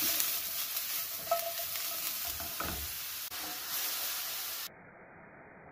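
Mushroom pieces sizzling in hot oil in a non-stick wok as the pan is shaken, with a few light knocks. The sizzle cuts off suddenly a little before the end, leaving only a faint hiss.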